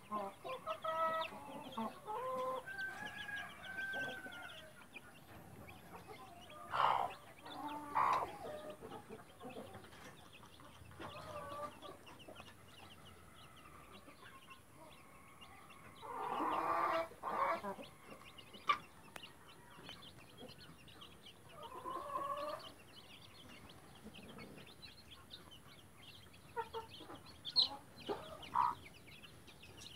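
Blue light Brahma mother hen clucking to her brood in scattered runs of calls, a few louder ones spread through, with chicks peeping softly in between.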